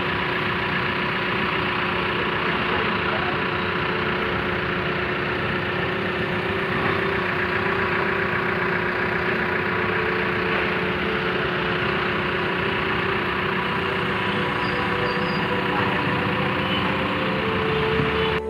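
Diesel engine of a hydra pick-and-carry crane running steadily, with a few steady tones riding over the engine noise.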